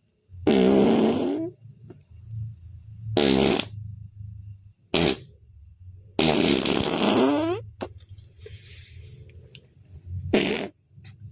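Imitation fart sounds made by a person: five separate blasts, the longest about six seconds in, sliding down in pitch at its end.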